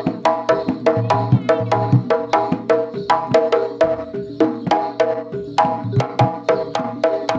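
Javanese jaranan gamelan music: a fast, even run of strikes on tuned metal percussion, about five a second, with drum strokes underneath.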